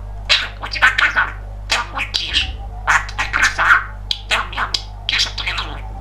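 Male budgerigar warbling: a fast, scratchy run of chirps, clicks and squeaks with short breaks, over a steady low electrical hum.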